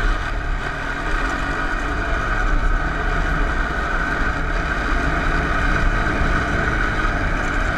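Honda TRX 250 four-wheeler's engine running steadily under throttle as the quad moves at speed.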